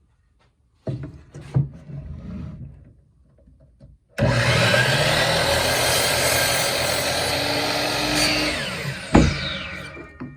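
DeWalt DWS779 miter saw, fitted with its stock 32-tooth blade, making a test cut through a wood board. After a few handling knocks the motor starts suddenly about four seconds in and runs steadily through the cut for about five seconds, then winds down with a falling whine. A sharp knock comes as it stops.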